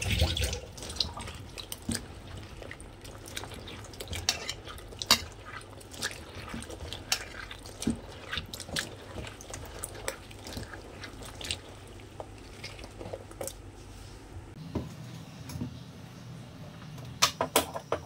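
A hand swishing and rinsing chopped vegetable pieces in water in a steel bowl: splashing and dripping, with frequent light knocks of the pieces against the steel. A low hum comes in about three-quarters of the way through, and a few sharper clinks sound near the end.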